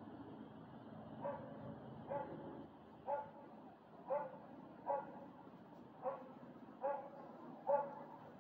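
A dog barking over and over, eight short barks about a second apart.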